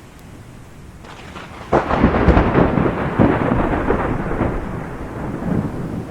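Thunder from a close lightning strike: a low rumble builds, then breaks into a sudden loud crack about two seconds in. Crackling, rolling rumbles follow and slowly fade, over steady rain.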